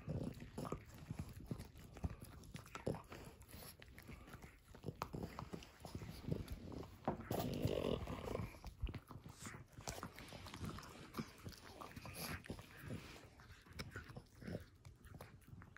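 Two French bulldogs gnawing on chews: irregular clicks and scrapes of teeth working the chews. About halfway through there is a louder stretch lasting about a second and a half.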